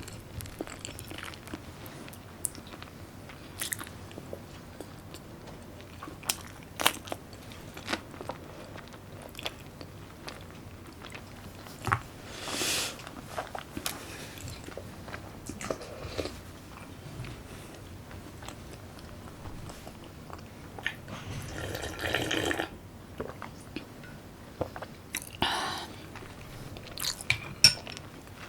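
Close-miked sounds of a person eating: chewing and biting, with many scattered sharp clicks and a few longer, louder noises.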